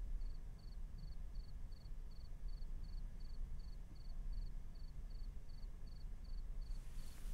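A cricket chirping steadily, about two or three short high chirps a second, over a faint low rumble, with a brief soft rush of noise near the end.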